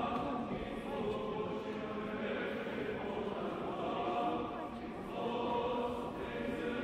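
Orthodox church choir chanting in long held notes.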